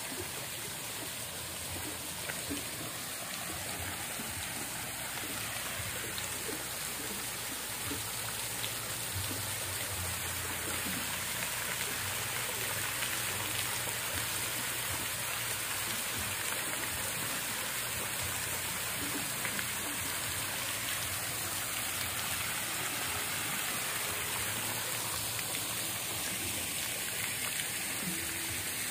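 Steady, unbroken hiss of falling water.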